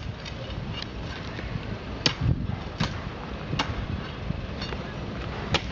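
Hand demolition of an old concrete driveway: a tool striking the concrete in four sharp, separate blows at uneven intervals, some with a brief ring.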